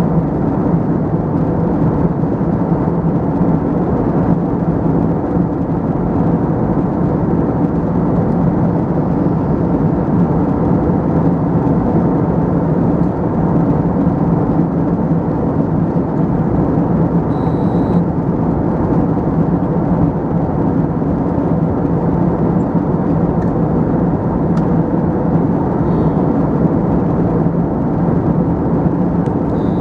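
Steady airliner cabin noise in flight: the even rush of airflow and drone of the jet engines, with a low hum.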